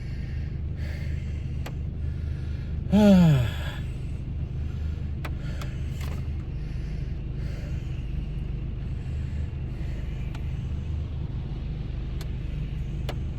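Car engine idling steadily, heard from inside the cabin, with a short falling vocal sound about three seconds in and a few light clicks.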